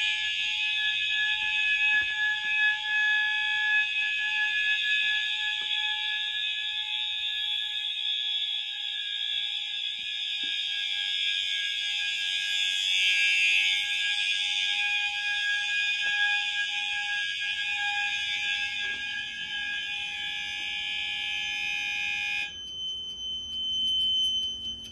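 Home fire alarm system in alarm: its horns and sounders running steadily together. About three seconds before the end they cut off suddenly, leaving one high steady tone.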